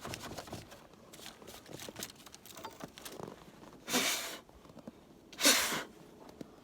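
A gloved hand brushing and sweeping snow off parts in a Jeep's engine bay: faint scraping and rustling, then two loud, short swishes about a second and a half apart near the end.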